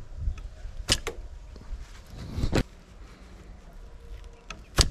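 Homemade bamboo bow handled and aimed with an arrow nocked: low handling rustle and a sharp click about a second in, then near the end the bowstring is released with a sharp snap as the arrow is shot.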